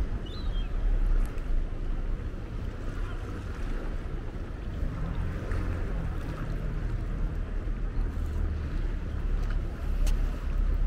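Waterfront ambience: a low, uneven rumble under a steady wash of noise, with a brief high chirp just after the start.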